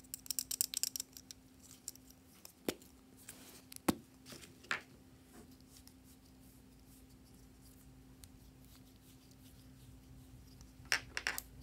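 Small plastic clicks and taps from hands handling and uncapping two plastic twist-up stick tubes: a quick run of clicks at the start, a few sharper knocks around three to five seconds in, and another short cluster of clicks near the end.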